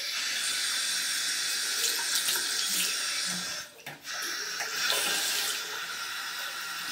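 Bathroom sink tap running, its stream splashing into the basin and over a small kitten held under it. The flow cuts out briefly about four seconds in, then runs again.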